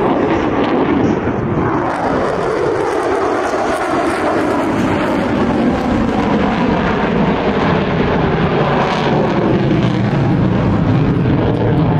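Lockheed Martin F-35A Lightning II's single F135 turbofan engine in afterburner as the jet passes overhead and climbs: loud, steady jet noise whose pitch sinks over the first couple of seconds as it goes by.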